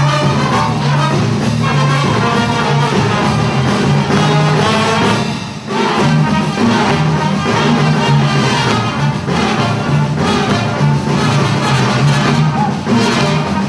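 Music with brass instruments and a steady beat, playing for a folk dance, with a brief drop in loudness about halfway through.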